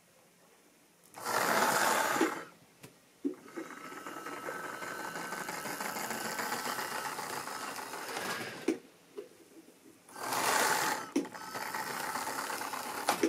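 Model railway diesel locomotive running on the track, its small electric motor whirring with the wheels rolling on the rails. It starts about a second in and swells loud twice for about a second as it runs close by.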